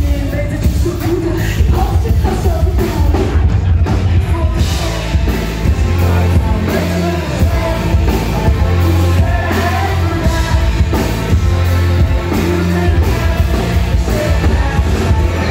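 Live amplified band music: a woman singing into a microphone over heavy bass and a drum kit.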